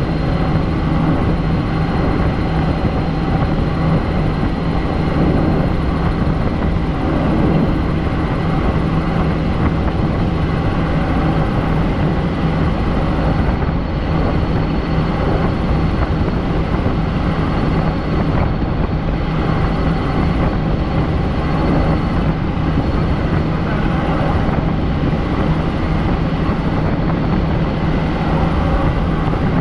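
Helicopter in flight: the steady, loud drone of rotor and engine, with a faint high whine held on a constant pitch.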